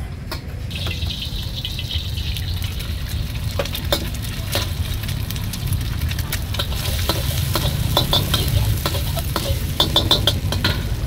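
Egg frying in oil in a steel wok, sizzling from about a second in, while a metal spatula scrapes and clanks against the wok to break up and scramble the egg. The clanks come thicker and louder toward the end, over a steady low rumble.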